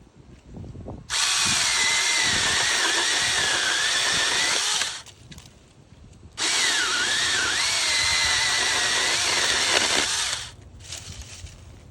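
Small cordless electric chainsaw running in two bursts of about four seconds each, with a pause between them. The motor's whine wavers and dips in pitch during each run.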